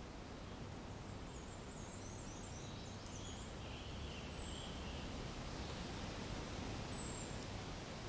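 Outdoor ambience: a steady low background noise with faint small birds singing over it. There is a quick run of high chirps in the first few seconds, a short warble, and two thin, high whistles that fall in pitch, about four and seven seconds in.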